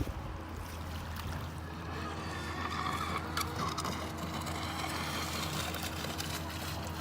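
Joysway US-1 v3 RC catamaran's brushless electric motor running out on the lake, a faint whine that swells about two seconds in, over a steady low hum.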